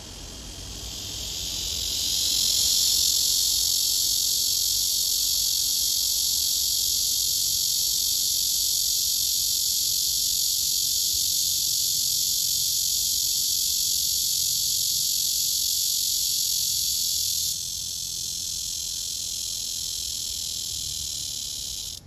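Male cicada singing its calling song to attract a female: a steady, high buzz that swells up over the first couple of seconds, eases slightly in volume near the end, then stops.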